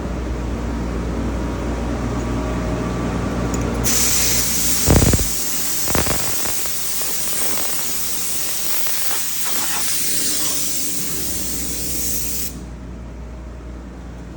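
A steady low hum, then a loud spraying hiss that starts about four seconds in and cuts off sharply a couple of seconds before the end, with two thumps near its start.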